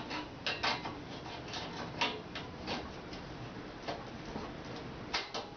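Irregular light clicks and taps as a home-made welding-rod stand with an alligator clip is handled and set down on a welding table.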